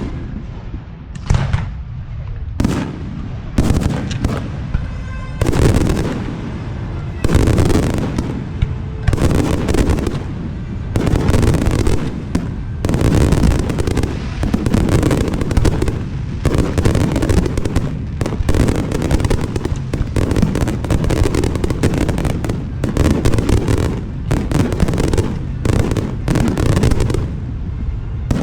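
A dense barrage of fireworks: aerial shells bursting one after another in rapid, overlapping booms with crackle in between.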